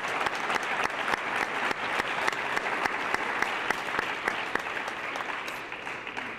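A small audience applauding, many hands clapping together, dying away near the end.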